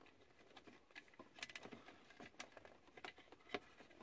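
Near silence with scattered faint clicks and taps of small plastic lighter-socket parts being handled and fitted, one sharper click about three and a half seconds in.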